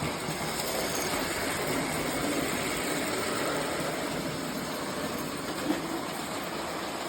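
Prewar Lionel 259E toy steam locomotive running around the track: a steady whir of its electric motor and gears with the rumble of wheels on the rails, and one short click about six seconds in. It runs smoothly after repair.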